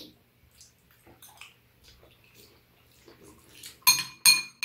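Metal spoons scraping and tapping against bowls while scooping bibimbap, with two loud, ringing clinks near the end.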